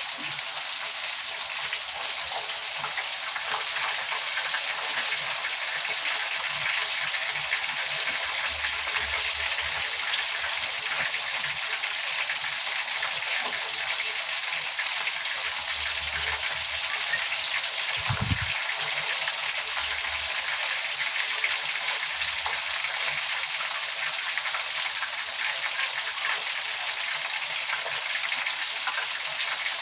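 Chicken pieces frying in hot oil, with a steady sizzle and crackle. A single brief low thump comes about two-thirds of the way through.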